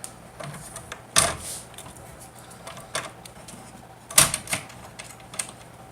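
Scattered sharp clicks and knocks from a rod blank and small tools being handled, with two louder knocks about a second in and about four seconds in.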